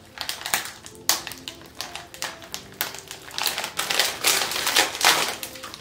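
Plastic chip bag crinkling and crackling in irregular bursts as it is torn open and rummaged through, loudest toward the end.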